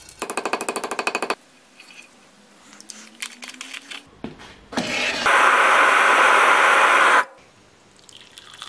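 A rapid clatter for about a second, then scattered small clicks, then a blacksmith's forge burner running with a loud steady rush for about two seconds before it cuts off sharply.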